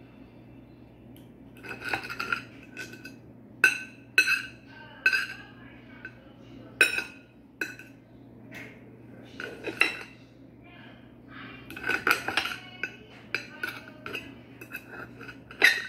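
Metal knife and fork clinking and scraping against a plate while cutting cooked chicken breast into pieces: irregular sharp clinks that ring briefly, some in quick clusters.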